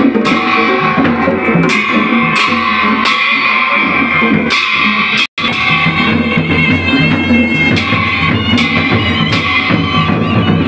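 Loud music with regular drum strokes under sustained melody notes. The sound drops out for a split second about five seconds in.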